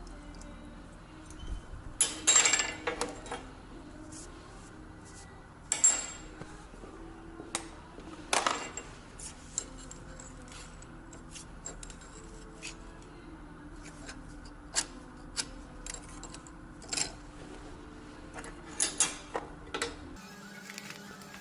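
Irregular metallic clinks and taps from metal pieces and hand tools being handled, with a few louder ringing strikes, over a low steady hum that stops near the end.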